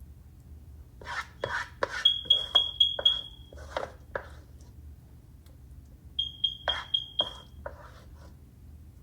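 Rapid high electronic beeping, about four short beeps a second, in two runs of a second or so each, mixed with sharp knocks and clatter.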